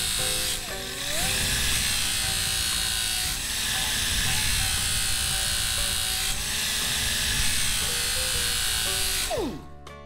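Blue Point AT460 sharpener grinding the edge of a lawn mower blade: a steady, harsh grinding hiss over the motor's whine, its pitch dipping and recovering about a second in as the blade bears on the wheel. Near the end the motor is shut off and winds down.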